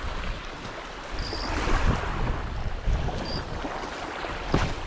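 Wind buffeting the microphone over small waves washing on the shore, with a brief knock near the end.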